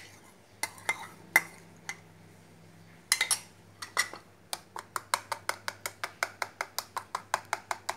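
Metal spoon mixing mashed banana into beaten eggs in a ceramic bowl, clinking against the bowl. It gives a few scattered clinks at first, then a steady run of quick strokes at about four a second from about halfway on.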